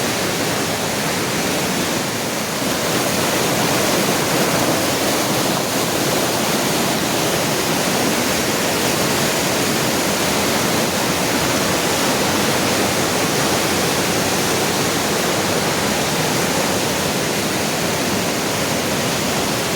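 Flood-swollen mountain river rushing high and fast in a steady, loud roar of turbulent water.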